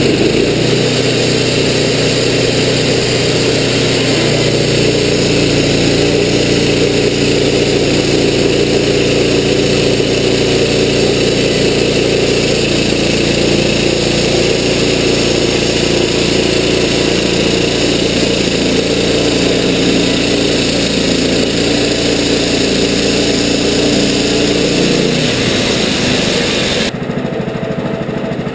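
Wood-Mizer LT15 band sawmill's engine running hard while its band blade cuts a board from a western red cedar log. About 25 seconds in the engine slows, and soon after the blade noise stops as it drops to idle at the end of the pass.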